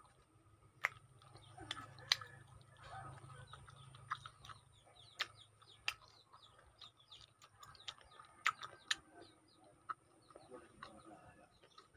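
Chewing lemon slices with wet mouth clicks and lip-smacks every second or so, and faint bird calls in the background.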